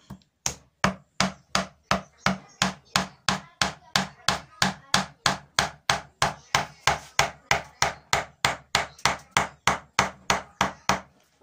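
A mallet tapping the handle of a woodcarving gouge in a steady rhythm, about three strikes a second, driving the gouge through the wood along a curved line.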